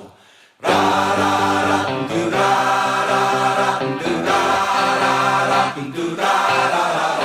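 Background music: singing voices holding long chords, coming in about half a second in after a brief gap.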